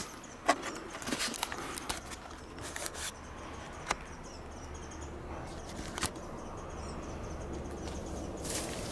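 Footsteps and small clicks and knocks of debris underfoot, a cluster in the first three seconds, then a few single sharp clicks over a steady faint low rumble.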